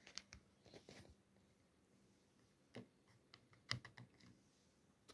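A few faint clicks and taps of a hand handling a plastic K'nex connector and its rods, the loudest about three and a half seconds in.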